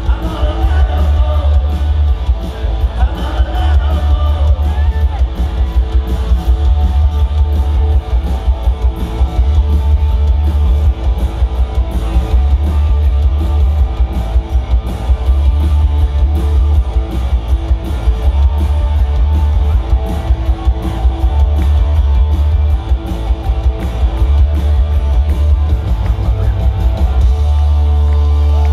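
A live punk rock band at full volume: distorted electric guitars, bass and drums, with a heavy, booming low end. About a second before the end the playing gives way to a steady held chord.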